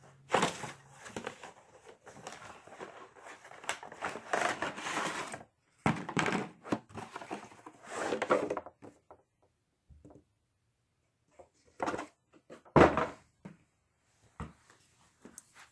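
Crinkling and rustling of packaging as tools are handled, in irregular bursts for the first nine seconds or so, then a few scattered knocks and clicks, the loudest about thirteen seconds in.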